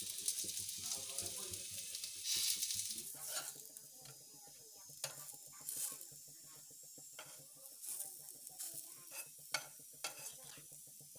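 Wheat-flour snacks sizzling in a little oil on a flat griddle while a metal spatula scrapes and taps the griddle surface, turning them over. The sizzle is louder for the first three seconds or so, then settles lower, with scattered scrapes of the spatula.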